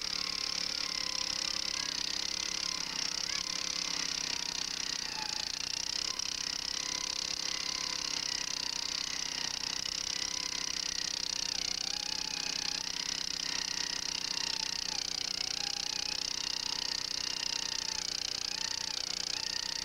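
Gas-powered earth auger's small engine running steadily under load as the auger bores into soil, an even, unbroken drone.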